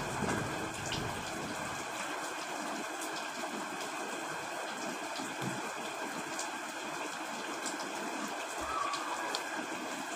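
Steady heavy rain. The last of a thunder rumble dies away in the first couple of seconds.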